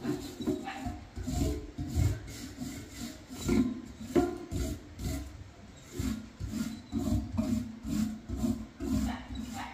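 Repeated scraping strokes at an uneven pace, about one to two a second, as a hand tool is worked along the top of a concrete wall.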